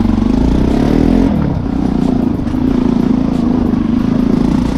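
Bajaj Pulsar NS200's single-cylinder engine running as the motorcycle is ridden, its note dipping and rising a little with the throttle.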